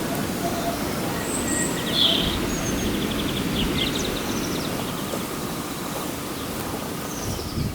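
Tractor engine running as it drives past, a steady low rumble, with small birds chirping over it.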